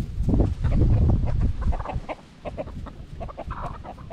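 Chickens clucking, with many short clucks throughout and a brief higher call near the end. A low rumble is loudest in the first second and a half.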